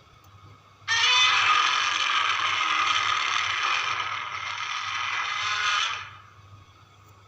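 Godzilla's roar sound effect, 1991 version: one long roar of about five seconds, starting suddenly about a second in and dying away near the end.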